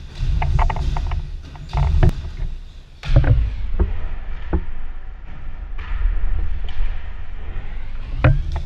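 People bouncing on trampolines: an irregular series of thumps as the beds take each landing, the heaviest about three seconds in, over a steady low rumble.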